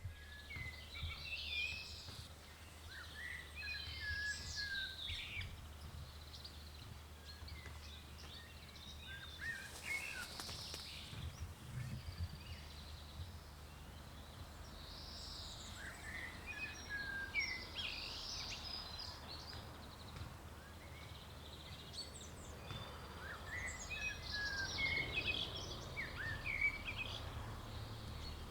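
Songbirds singing in short warbling bouts with pauses of a few seconds between, over a steady low hum.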